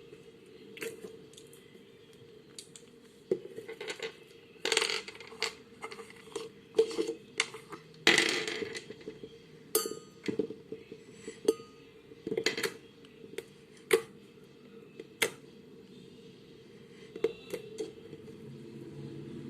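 Slime being played with by hand: irregular short sticky clicks and pops, with a denser squelching stretch about halfway through.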